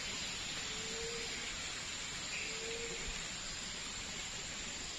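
Steady outdoor hiss with a short, low, slightly rising note heard twice, about two seconds apart.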